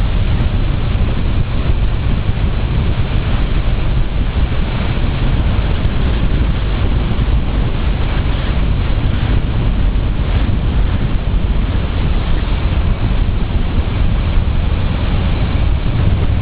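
Steady wind buffeting on the microphone of a camera on a moving motorcycle, heaviest in the low end, with the rush of riding at road speed underneath.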